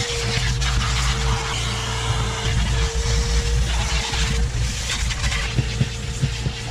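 Vacuum cleaner running steadily with a whine, its hose nozzle sucking over car floor carpet, with a few small knocks near the end as the nozzle bumps the carpet and trim.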